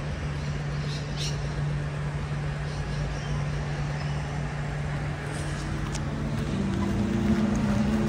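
Steady low engine hum of a motor vehicle with a haze of traffic noise; from about six seconds in, a second, higher steady hum joins and grows a little louder.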